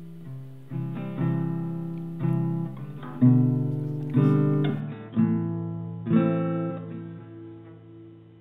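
Acoustic guitar music: chords struck one after another, about once a second, each ringing and fading before the next.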